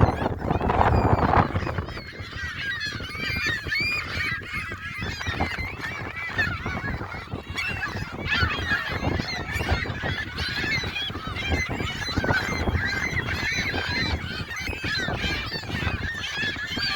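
A flock of gulls calling over one another: many short, high cries overlapping, with a low rumble underneath.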